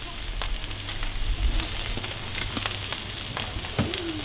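Hot dogs and onions sizzling on a Cuisinart 360 round flat-top griddle, an even hiss with a low hum underneath and a few sharp little clicks and taps.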